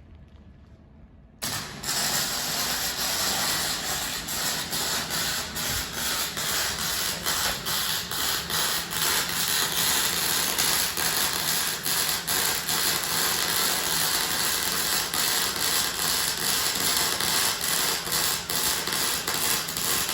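Metalworking tool working on a steel grab collar: a loud, continuous hissing crackle full of irregular sharp ticks. It starts abruptly about a second and a half in and holds steady.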